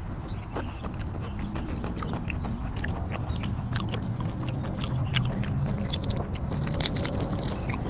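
Close-miked chewing of raw shrimp in spicy sauce, with many wet mouth clicks and smacks that come thicker and louder in the second half.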